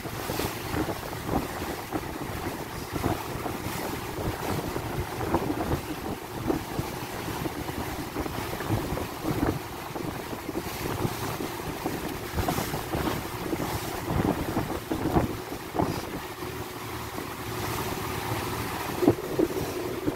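Wind buffeting the microphone over water rushing and splashing along the hull of a boat under way at speed.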